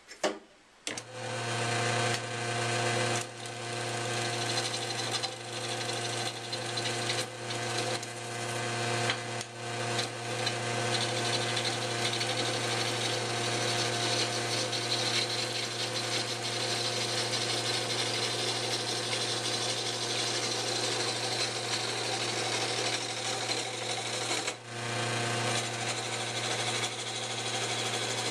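Belt-driven wood lathe switched on about a second in, its electric motor humming steadily while a hand-held gouge scrapes and cuts into the spinning log. The wood is poor turning stock that flakes off in chunks.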